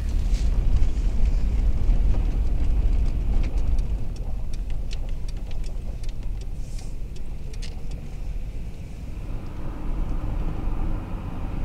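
Car driving, heard from inside the cabin: a steady low road and engine rumble, with scattered light clicks in the middle few seconds.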